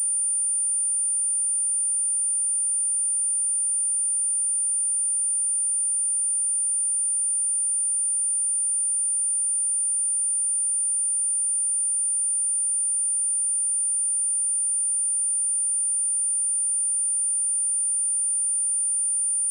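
A single steady, high-pitched 9236 Hz sine-wave test tone, held at constant level.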